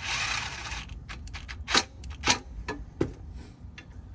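A short hiss at the start, then a few sharp metallic clinks and knocks of tools and small hardware being handled, the loudest three about half a second to a second apart.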